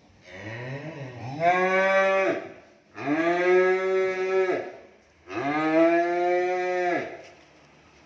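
Cattle mooing: three long calls of about two seconds each, the first starting low and rising.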